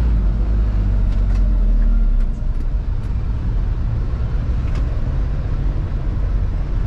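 Diesel engine and road rumble of a Mitsubishi Fuso Canter light truck on the move, heard from inside the cab: a steady low drone that eases slightly about two seconds in, with a few faint ticks.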